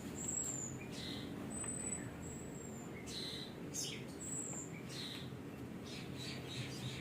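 A small bird chirping: short, thin, very high whistled notes, repeated several times, over a low steady background hum.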